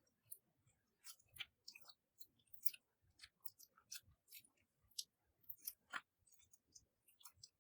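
Clear slime being squished and stretched by hand, giving faint, irregular sticky clicks and small pops, several a second.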